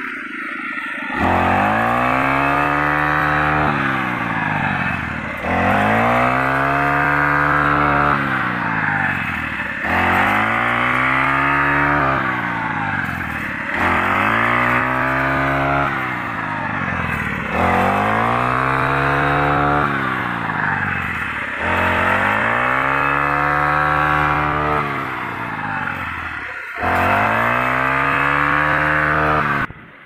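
A petrol brush cutter's engine, fitted with a wheat-reaping attachment, revving under load in repeated cycles about every four seconds as each sweep cuts through wheat: each cycle starts with a jump in loudness, the pitch climbing and then sagging.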